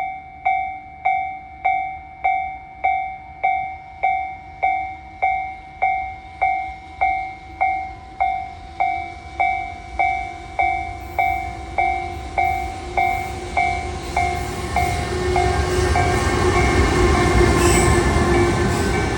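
Japanese level-crossing warning bell ringing about twice a second, each strike dying away. From about fourteen seconds in, the rising noise of a container freight train hauled by an EH500 electric locomotive builds up and nearly covers the bell as the train passes the crossing.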